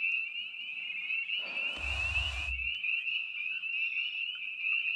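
A dense frog chorus, many high calls overlapping in one steady band. About a second and a half in, a short rush of noise with a low rumble cuts across it for about a second.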